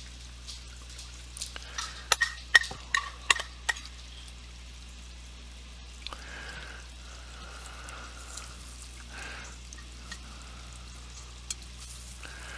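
Metal spoon clinking and scraping against a hot cast-iron Dutch oven as biscuit dough is dropped in, with a cluster of sharp clinks in the first few seconds. A faint sizzle follows as the dough meets the preheated pot.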